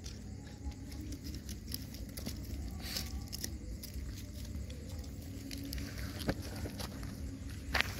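Puppies shuffling over dry, debris-strewn ground: scattered rustling and small clicks, a few of them sharper, over a low steady rumble.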